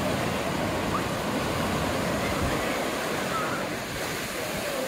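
Ocean surf breaking and washing up the beach, a steady rushing noise.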